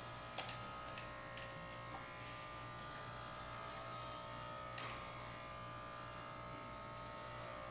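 Electric hair clippers running steadily as they shave a head down to the scalp, with a few faint ticks along the way.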